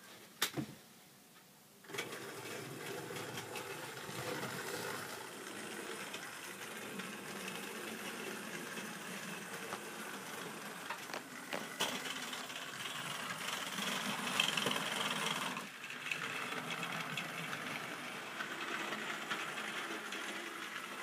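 Model train running on its track: the small electric motor whirring and the wheels rattling over the rails, a steady sound that starts about two seconds in and briefly dips near the three-quarter mark.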